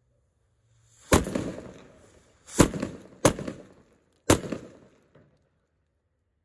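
Small paper-wrapped Diwali firecracker bombs going off one after another on concrete: four loud bangs, each trailing off over half a second or so, then a small pop near the end.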